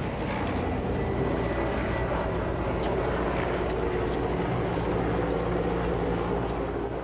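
A steady engine drone at an even level.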